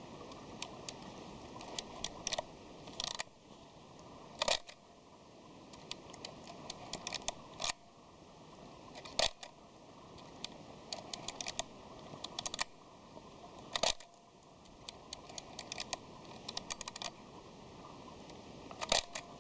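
Konica Autorex 35mm SLR being wound on and fired several times: runs of small ratcheting ticks from the film-advance lever, each set broken by a sharper single click from the shutter.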